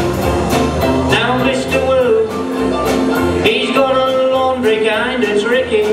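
Live band playing an instrumental passage: strummed ukulele, electric guitar and keyboard over a steady drum beat.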